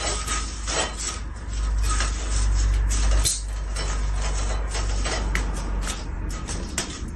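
Venetian blind slats rattling and clattering in quick, irregular clicks as a cat paws and pushes through them, over a steady low rumble.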